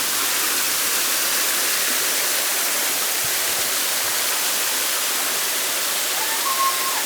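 Steady rushing of a small mountain waterfall and stream cascading over rock.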